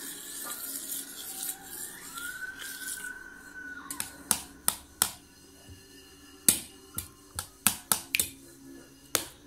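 Metal spoon scraping and clinking against a stainless steel plate as a small child scoops up food. A soft scraping comes first; from about four seconds in there is a run of sharp, uneven clinks, about a dozen.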